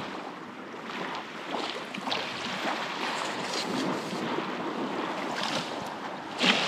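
Baltic Sea surf washing steadily onto the beach, with wind on the microphone.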